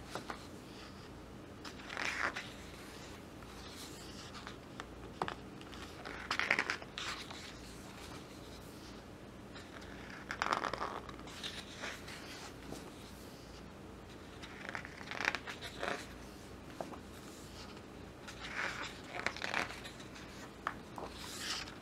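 Glossy pages of a large photo book being turned by hand: several short papery swishes and rustles, a few seconds apart.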